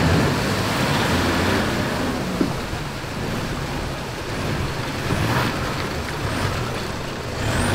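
Toyota Hilux 4x4's diesel engine running under load as it works through mud and water. It is a little quieter in the middle and picks up again near the end.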